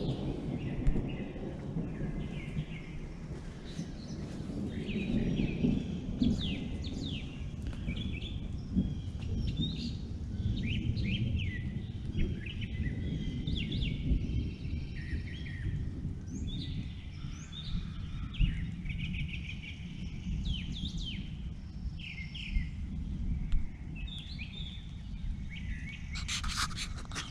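Small birds chirping repeatedly in short, quick calls over a steady low rumble, with a brief louder rustling noise near the end.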